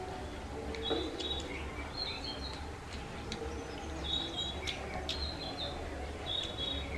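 Small birds chirping in short, high calls that repeat every half second or so, with a few sharp clicks from hand-eating and chewing.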